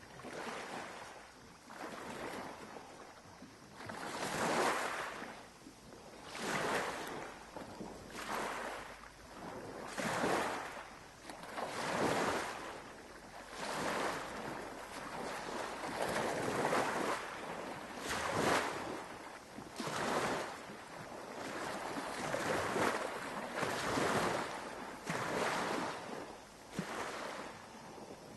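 Sea waves washing in one after another, a rush of water that swells and fades every one to two seconds.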